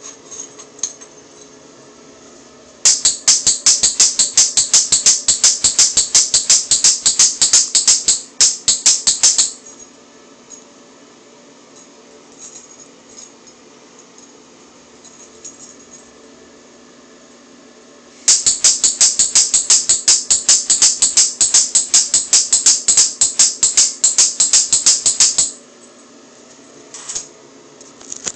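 A small frog giving a loud call of rapid, sharp high-pitched clicks in two long bouts of about six and seven seconds.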